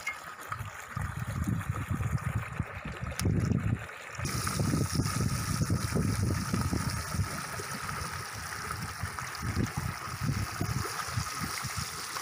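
Battered cauliflower pakoda sizzling in hot oil in an iron kadai, an even hiss that starts abruptly about four seconds in. A flowing stream and a low rumble run underneath throughout.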